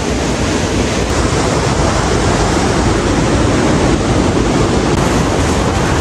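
Steady, loud rush of a nearby waterfall's falling water, with wind buffeting the microphone.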